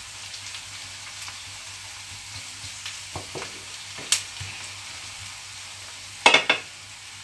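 Chopped onion and garlic sizzling in olive oil in a frying pan, frying gently to soften, while a wooden spatula stirs them. The spatula scrapes and knocks against the pan a few times, loudest in a quick cluster about six seconds in.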